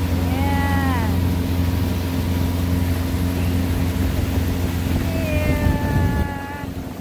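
Motorboat engine running steadily under way, then dropping away about six seconds in as the boat slows. Two high, drawn-out calls ring over it, a short falling one about half a second in and a longer held one near the end.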